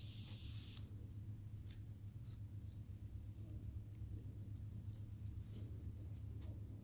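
A steady low hum with faint, scattered small ticks and clicks over it. A high hiss stops a little under a second in.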